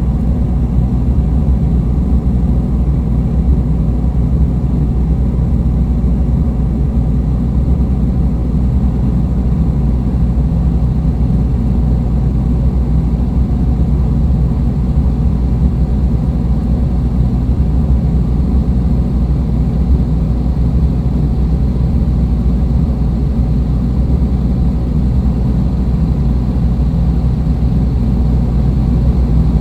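Dark ambient drone music: a dense, steady low rumble with a faint sustained tone near 100 Hz, unchanging throughout.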